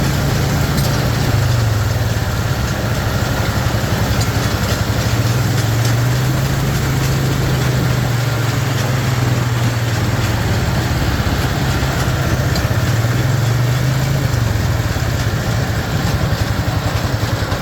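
Tractor pulling a round hay baler: engine running steadily under load with mechanical clatter from the baler, the engine's low hum rising and falling slightly.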